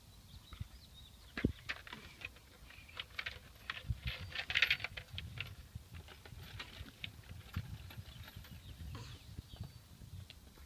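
Toddler bucket swing creaking and clicking at its hooks and ropes as it swings, a scatter of light irregular clicks and knocks that bunch up briefly about four to five seconds in, over a low rumble.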